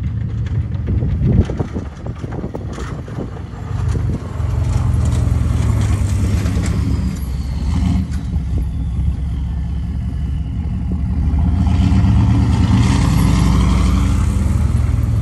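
Chevrolet K2500 pickup's 6.5 L Detroit turbo-diesel V8 running through a 4-inch straight pipe, with a faint turbo whistle. It grows louder toward the end as the truck pulls past close by.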